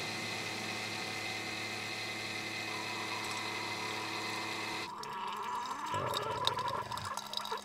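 Single-serve pod coffee maker brewing: its pump runs with a steady hum. About five seconds in, the sound turns uneven with small clicks as coffee starts streaming into a metal camp mug.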